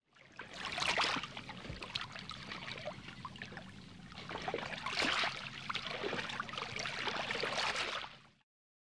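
Running water trickling and splashing, swelling about a second in and again around five seconds, then stopping just before the end.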